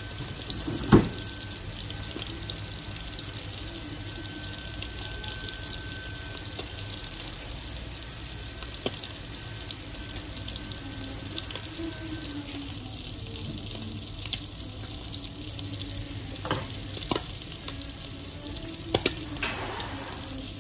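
Kitchen tap running steadily into the sink, with a sharp knock about a second in and a few light clicks near the end.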